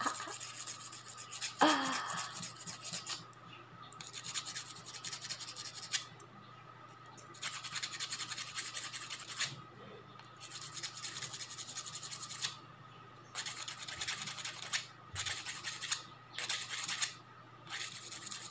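A small metal manicure tool being sharpened by rubbing it on a flat handheld sharpener: rasping scraping strokes in bursts of one to two seconds, with short pauses between them.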